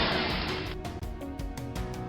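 Light background music with a steady beat and held notes. A hissing whoosh fades out in the first second.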